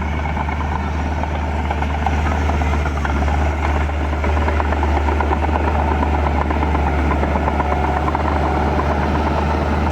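Heavy diesel earthmoving machinery, a bulldozer or dump truck, running steadily with a deep engine hum, a little louder from about two seconds in.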